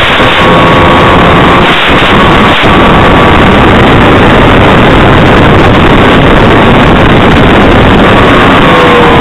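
Heavy wind noise buffeting the microphone of an RC plane in flight, with the thin whine of the SkySurfer 1400's electric motor and propeller under it. The whine falls in pitch near the end.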